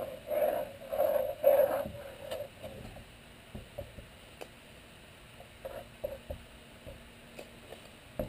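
Squeeze bottle of Titebond II wood glue being squeezed as glue is run out in beads: a few short squirting sounds in the first two seconds, then only faint scattered ticks and clicks of handling.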